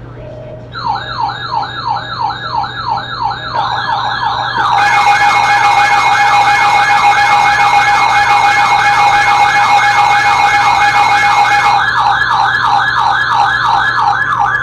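Electronic siren in a fast yelp: quick falling sweeps repeating several times a second, loud. For several seconds in the middle a steady tone and a hiss join it.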